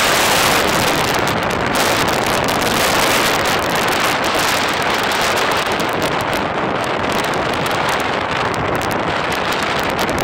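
Loud, steady rush of wind and road noise from a car driving at speed, with wind buffeting the phone's microphone held at the car window.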